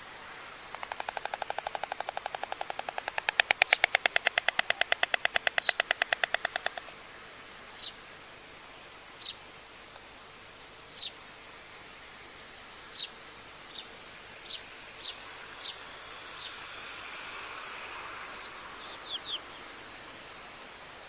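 White stork clattering its bill: a rapid, even rattle of about ten clacks a second for some six seconds, louder in its second half, then stopping. Afterwards a small bird gives about a dozen short, high, falling chirps, scattered over the rest of the time.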